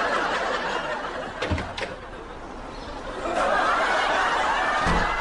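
Live studio audience laughing at a punchline. The laughter dies down about two seconds in and swells again a little after three seconds.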